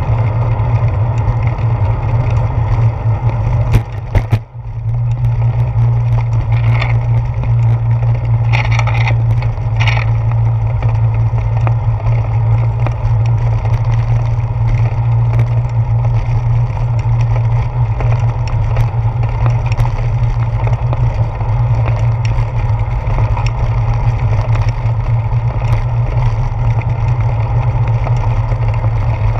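Steady wind buffeting and road rumble on a handlebar-mounted GoPro Hero 4 as a bicycle rolls along the street, a low, even drone with a short dip about four seconds in.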